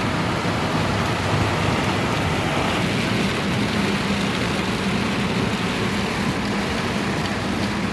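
Heavy rain falling on and around a car, a steady hiss of rain with a low, steady vehicle hum underneath.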